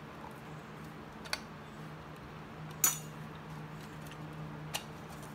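A few short, sharp metallic clicks and clinks as the chrome fuel-tank console is handled and brought over the tank, the loudest about three seconds in, over a low steady hum.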